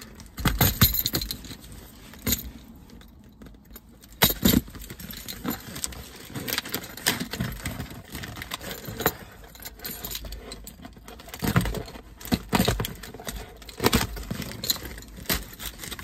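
A bunch of keys jangling and clinking while one key is dragged along the packing tape of a cardboard box to slit it open, giving irregular clicks and short scrapes.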